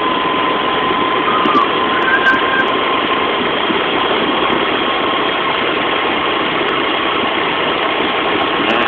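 Steady engine and road noise from a moving vehicle, with a thin, constant whine over it.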